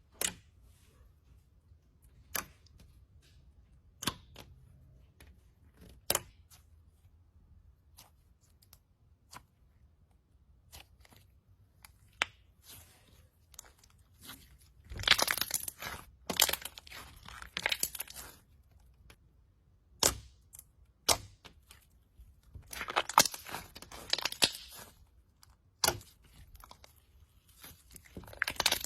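Slime being pressed and worked by hand, giving sharp pops and crackles. A few single pops come about every two seconds at first, then there are longer stretches of dense crunching crackle around the middle and again later.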